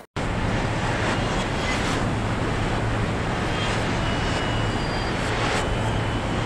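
Steady assembly-plant machinery noise: an even rush from the body-line conveyors and plant equipment with a constant low hum, and a few faint short high tones now and then.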